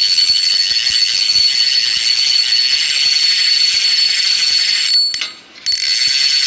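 Logo-intro sound effect: a loud, steady high-pitched mechanical whirr with fast rattling and a ringing tone. It cuts out briefly about five seconds in, then comes back.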